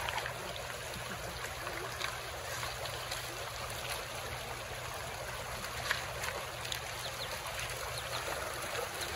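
Shallow river running over stones, a steady rushing wash of water, with a few faint clicks and splashes from paws and feet wading through the shallows.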